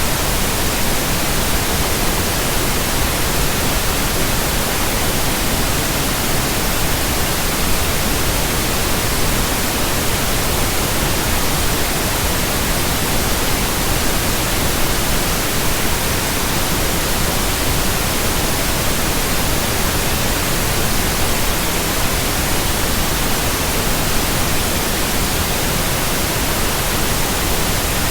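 Steady pink noise: an even, unchanging hiss spread across all pitches, played as a sleep and relaxation sound.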